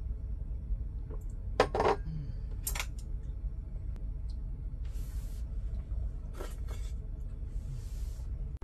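Porcelain teacup being set down on its saucer: two sharp clinks in the first three seconds, followed by a few soft brushing sounds, over a steady low rumble.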